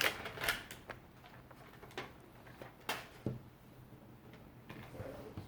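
Plastic toy packaging being handled and worked open by hand: scattered crinkles and sharp clicks, with a few louder snaps about two and three seconds in.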